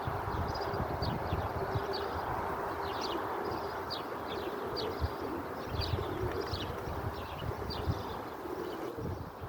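Birds chirping: many short, high, quick chirps, several a second, among street pigeons, over a steady outdoor hum with occasional soft low thumps.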